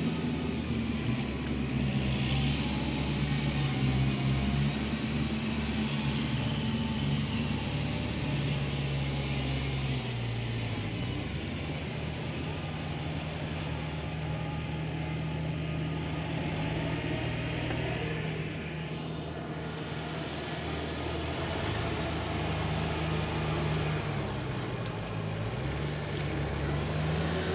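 Farm tractor diesel engines running steadily, with the engine note shifting up and down a few times as they work.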